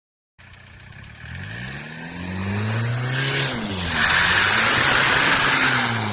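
Car engine accelerating hard: its pitch climbs, drops sharply at a gear change about three and a half seconds in, then climbs again under a loud rushing hiss.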